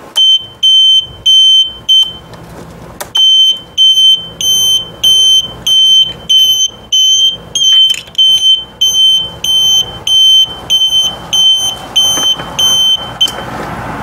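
12 V electronic piezo buzzer wired into a scooter's turn-signal circuit, beeping a single loud high tone in time with the flasher, about two beeps a second. The beeping pauses briefly about two seconds in, then runs on and stops near the end. The steady beeping shows the buzzer is working and the turn signal is on.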